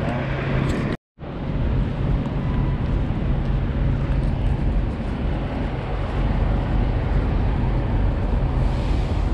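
Semi truck's diesel engine idling, a steady low rumble that drops out briefly about a second in.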